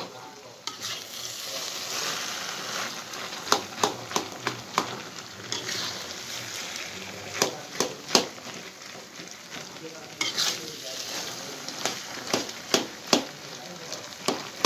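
A large batch of crumbled egg frying and sizzling in a pan while a metal spatula stirs and scrapes it. The spatula striking the pan gives sharp clacks in irregular clusters over a steady frying hiss.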